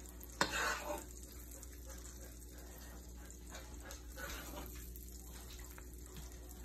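A metal utensil clinks sharply against a ceramic plate about half a second in, followed by fainter scraping and handling sounds as sauce is spooned onto the plated chicken.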